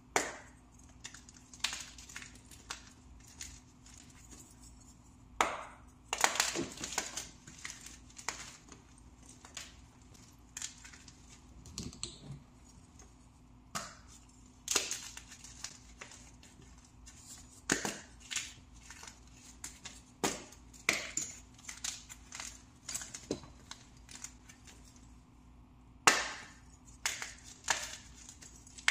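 Plain powder blocks crushed by hand: irregular crunches and crackling crumbles, with the loudest crunches at the start, around six seconds in, near fifteen, eighteen and twenty-one seconds, and at about twenty-six seconds.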